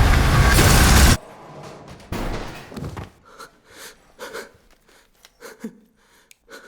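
Film sound design: a loud rushing rumble cuts off abruptly about a second in, then a brief whoosh, then quiet with faint, short breaths and soft knocks.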